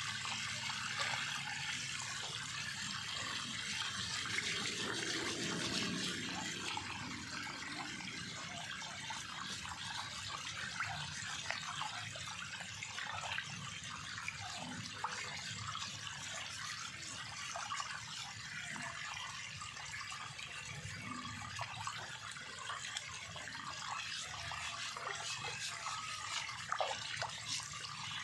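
Water splashing and sloshing in a metal basin as hands scrub and rinse a pig's head, over a steady hiss of running water.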